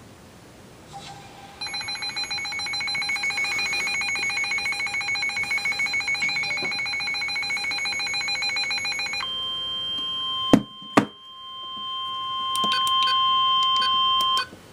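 Emergency Alert System alarm for a flash flood warning. A rapidly pulsing electronic beep sounds for about seven seconds. It is followed by a steady high warning tone for about five seconds, broken by two sharp clicks.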